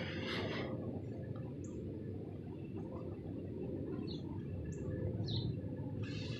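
A few short, high bird chirps over a steady low rumble of outdoor background noise.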